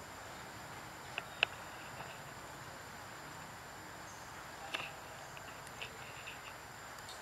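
Faint forest ambience: a steady high-pitched insect drone over a soft hiss, with a few short, sharp clicks, two of them close together about a second in and another near the middle.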